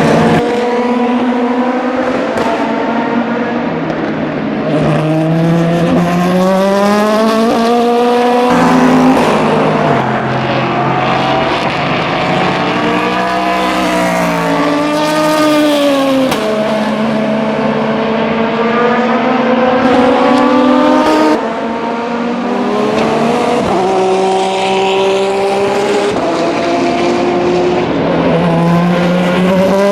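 Endurance race cars at speed: several engines run at once, each climbing in pitch and dropping sharply at upshifts, with cars passing and their sounds overlapping.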